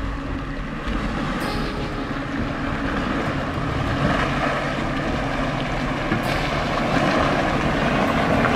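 Jeep Wrangler engine running steadily under load while its tyres churn through muddy water.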